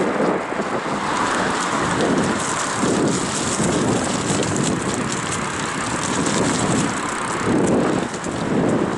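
Bicycle tyres rolling over a path covered in dry fallen leaves: a steady crackling rush scattered with many small clicks.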